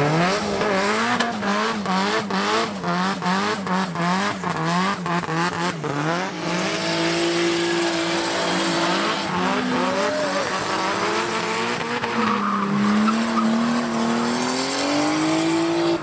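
Drift car engines revved hard in quick blips, the pitch rising and falling about twice a second, then about six seconds in the cars launch: an engine held high with slow rises and falls in pitch over tyre squeal as a car drifts in a cloud of tyre smoke.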